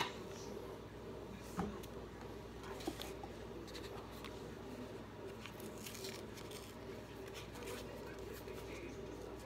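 Quiet kitchen room tone with a sharp click at the very start and two light knocks in the first three seconds, from things being handled on the counter.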